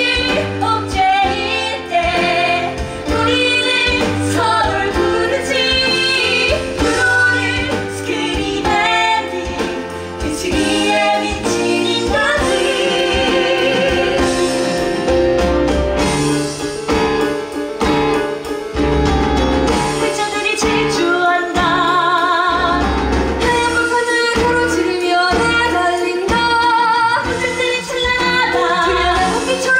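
Women singing a musical-theatre song over instrumental backing, with vibrato on the held notes.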